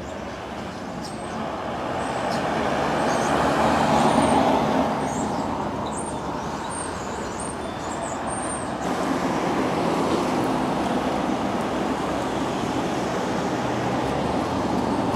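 Road traffic: a vehicle passes close, its noise growing louder to a peak about four seconds in and then fading. Steady traffic noise follows.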